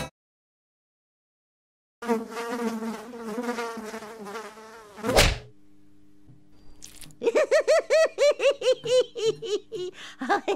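Cartoon sound effects: a housefly buzzing with a wavering pitch, then a sharp swat of a fly swatter about five seconds in. After a short pause the buzzing comes back in quick pulses, about five a second.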